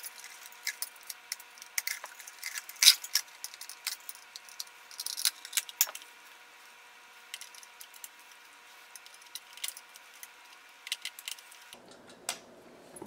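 Scattered light metallic clicks and rattles from a hand screwdriver working on a ceiling fan's brass light kit and its small screws. The clicks are busiest in the first half, thin out in the middle and pick up again near the end.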